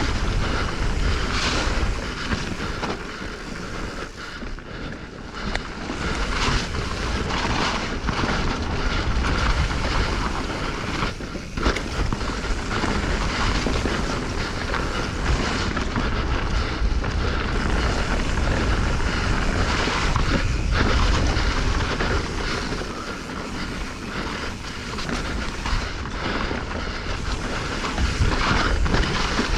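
Mountain bike descending dirt singletrack at speed: wind buffeting the microphone over the steady rush of knobby tyres on dirt, with the bike's chain and frame rattling over bumps and roots.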